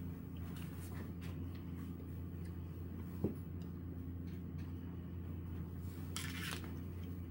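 Quiet room with a steady low hum, a single faint tap a little past three seconds in and a short hiss about six seconds in.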